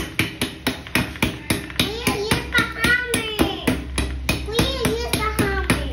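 Metal spoon striking a ball of ice over and over, about four sharp knocks a second.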